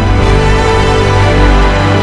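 Loud background music with a heavy bass, changing chords just after the start and again near the end.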